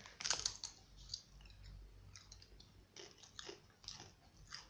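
Chewing on crunchy rolled tortilla chips, an imitation of Takis, with a few scattered crunches.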